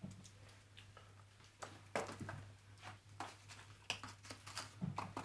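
Faint, irregular light clicks and taps of small objects handled in someone's hands, over a steady low hum.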